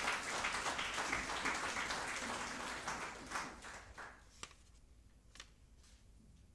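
Audience applauding, dying away about four seconds in, followed by a couple of single sharp clicks.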